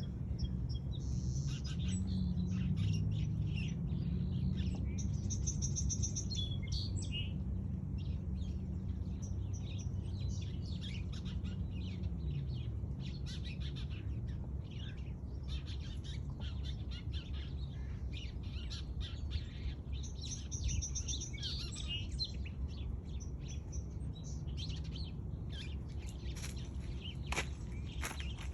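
Small birds chirping and twittering continuously, with overlapping short calls and trills, over a low steady background rumble.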